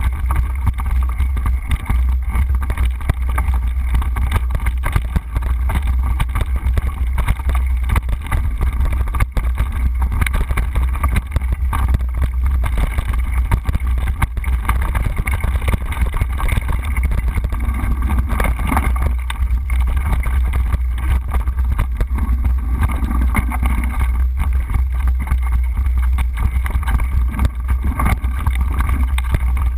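Wind buffeting the microphone of a camera riding on a mountain bike on a dirt singletrack: a loud, steady low rumble with constant irregular rattling and clatter from the bike and tyres over the rough trail.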